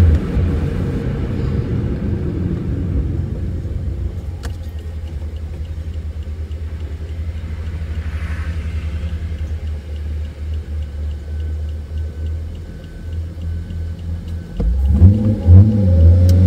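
Infiniti G37's 3.7-litre V6 with Ark Grip exhaust and Mishimoto intake tubes, heard from inside the cabin: the engine note falls away at the start and settles into a steady low rumble, then about fifteen seconds in it revs up again with rising pitch as the car accelerates.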